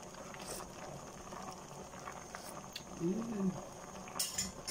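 Sinigang fish broth boiling in a pot, a steady bubbling. A short voice sound about three seconds in, and a brief click near the end.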